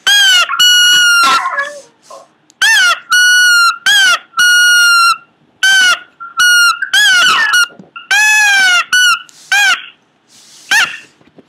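Pomeranian making a rapid string of high-pitched squealing whines, about a dozen short calls; some are held level in pitch, others rise and then fall.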